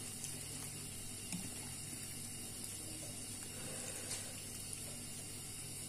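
Steady faint hiss with a few soft clicks, about a second and a half in and again about four seconds in, as chopsticks lift noodles from a ceramic bowl.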